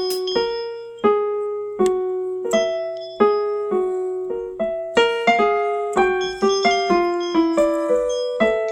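Background piano music: a melody of single struck notes, each ringing and fading, coming faster after about five seconds.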